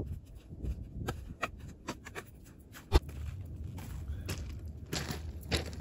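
Footsteps crunching on loose gravel and plastic landscape fabric, in irregular steps, with one sharp knock about three seconds in.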